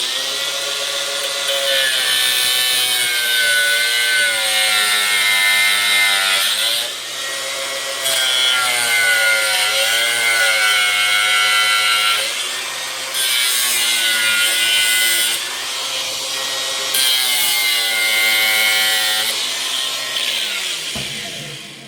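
Small power tool cutting around the edge of a lead-acid car battery's plastic case. Its motor note dips and recovers as it bites, and the cutting hiss swells in four spells before stopping near the end.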